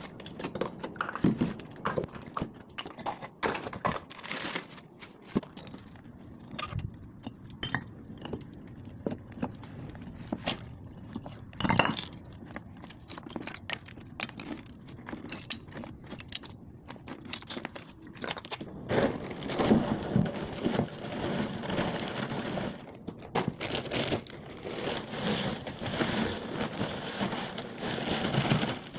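Irregular crunching, scraping and knocking of hand work with building materials. It is sparse at first and turns busier and denser about two thirds of the way through.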